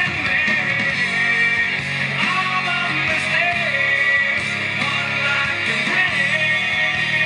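Music: a song with a singing voice over guitar, playing loudly and steadily.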